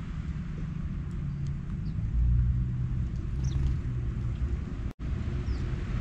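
Steady low outdoor rumble with a few faint, short, high chirps from small birds; the sound cuts out for an instant about five seconds in.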